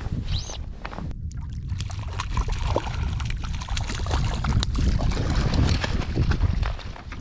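Lake water sloshing and splashing close to the microphone, with many small clicks and knocks of handling over a steady low rumble.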